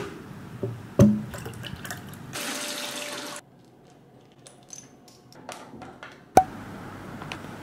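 Household handling sounds: a sharp knock, about a second of running water like a tap, then quiet small clicks as a glass dropper bottle is handled, and another sharp click near the end.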